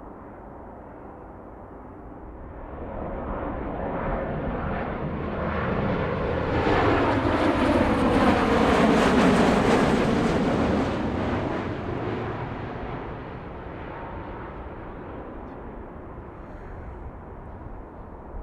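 Jet airliner passing close by: its engine noise swells over several seconds, peaks about halfway with tones sliding down in pitch as it goes past, then fades away.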